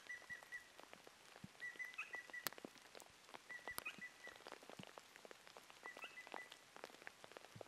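Faint patter of light rain with scattered drop ticks, and a frog calling: short runs of quick, high, even pips, four times about every two seconds.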